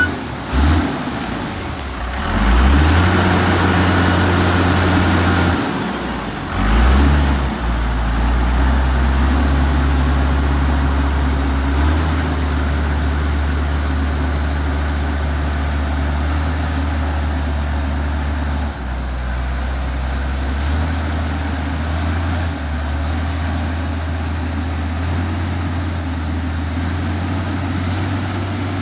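Diesel engine of heavy road-construction machinery running steadily, revving up twice in the first several seconds.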